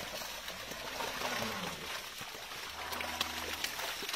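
Water trickling and splashing from a cast net as it is lifted out of shallow water, with scattered small sharp clicks and splashes throughout.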